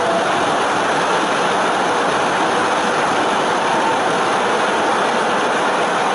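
Audience applauding steadily at the close of the opera.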